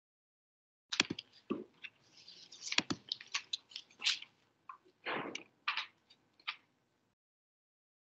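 Handling noise close to a computer microphone: a run of irregular clicks, knocks and rustles as the presentation is set up. It cuts in about a second in and stops shortly before the end.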